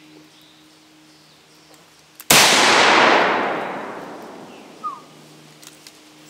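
A single shot from a Mosin-Nagant M44 carbine (7.62×54mmR) about two seconds in: a sharp, loud report followed by a long echo that dies away over about two seconds.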